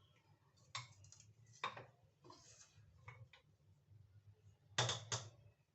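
A few separate clicks and light knocks of a utensil against a mug or dish, the loudest a quick pair near the end.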